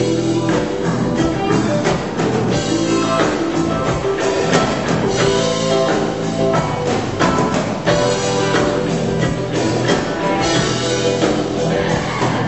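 Live rock music: an electric guitar played over a drum kit, with regular drum hits throughout.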